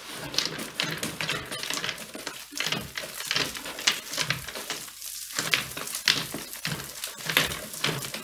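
Chimney-sweep brush on a pole being pushed about inside a chimney flue: rough, irregular scraping and rattling, with twigs knocked loose and dropping into the fireplace as the blocked flue is cleared.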